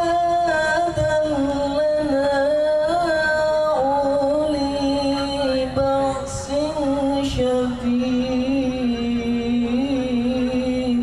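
A male voice chanting Quran recitation (tilawah) in one long, ornamented melodic phrase. He holds drawn-out notes with wavering turns, sinking slowly in pitch, and breaks off at the end.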